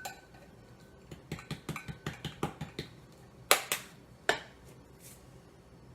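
Ground-mustard spice jar being handled: a quick run of light clicks and taps, then two sharper knocks, as the spice is shaken and tapped out.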